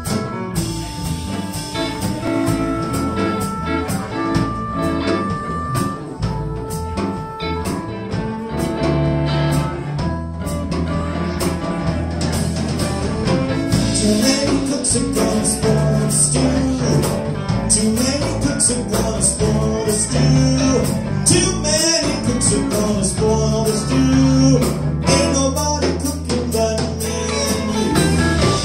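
Live electric blues band playing an instrumental passage: two electric guitars, electric bass and a drum kit keeping a steady beat, with a harmonica playing long held notes into the microphone before dropping out.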